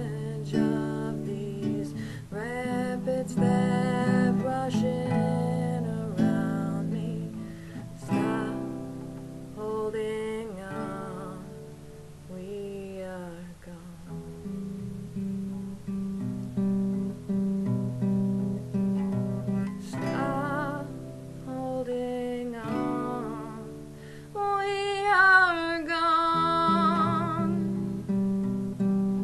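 Nylon-string classical guitar picked and strummed as song accompaniment, with a woman singing in stretches; a held, wavering sung note stands out near the end.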